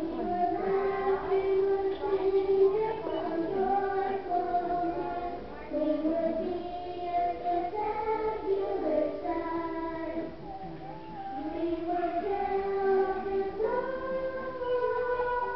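A group of young children singing a song together, with music underneath.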